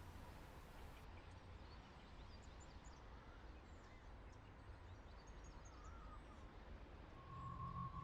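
Near silence: a faint low background hum with a few faint high chirps. About a second before the end, music starts with a steady high tone over a pulsing low beat.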